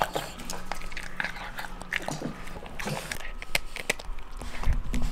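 Italian greyhound eating and chewing, heard close up: an irregular run of short bites and chewing clicks.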